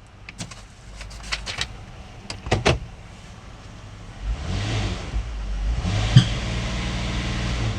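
A few sharp clicks and clunks, then about four seconds in a minivan's 3.6 Pentastar V6 is bogged down under load and its drone rises and holds, with a sharp knock about six seconds in. The mechanic puts the noise down to a broken engine brace.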